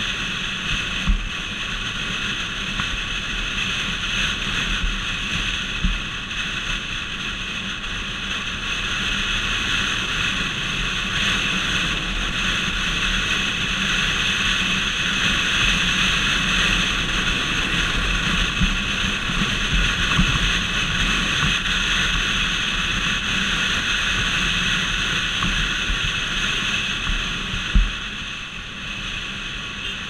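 Motorcycle riding at speed: steady engine and road noise mixed with wind rushing over the microphone, and a few thumps from bumps or buffeting. It grows louder through the middle and eases off near the end, just after a sharp knock.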